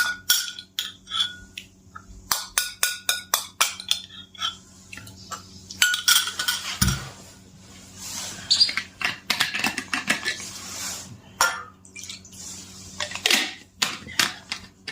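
Cutlery clinking against dishes: a long series of sharp clinks with short ringing, and softer scraping and rustling noise in between, with a dull thump about seven seconds in.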